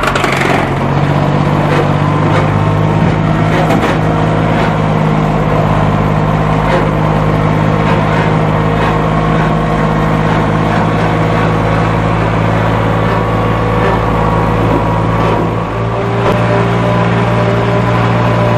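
Lawn mower engine running steadily under load, with a brief dip in level and a slight change in tone about fifteen seconds in.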